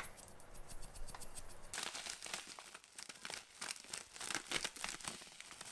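Chicken powder seasoning shaken from a small container over a pot of chicken broth: a fine, dense crackle of tiny ticks, sparse at first and much thicker from about two seconds in.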